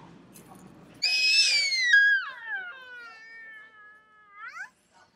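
A toddler's long, high-pitched squeal, starting about a second in, sliding down in pitch and then sweeping sharply up again near the end.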